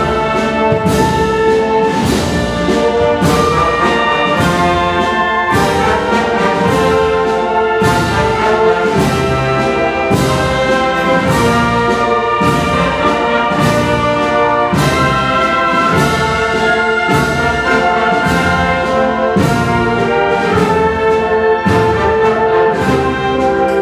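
Wind band playing a Spanish processional march: brass and woodwinds sustaining full chords over a steady, even drum beat.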